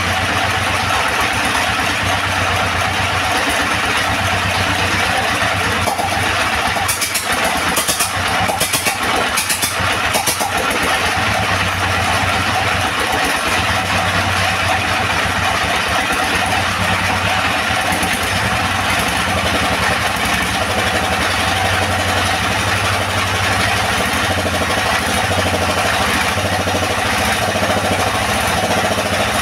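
S1115 single-cylinder diesel engine running steadily after being serviced and restarted, with no sign of further trouble. A few sharp clicks come about seven to ten seconds in.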